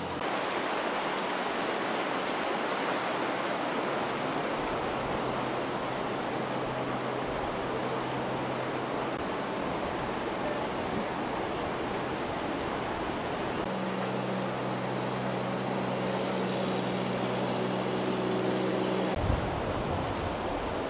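Fast-flowing floodwater rushing across a street: a steady, even rush of moving water.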